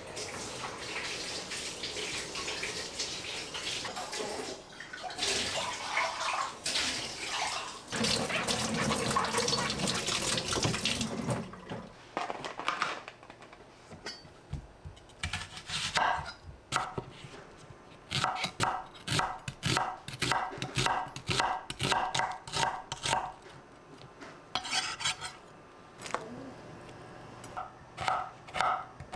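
Kitchen tap running water into the sink for about eleven seconds, then a long run of clinks and knocks of dishes and utensils, some of them ringing briefly.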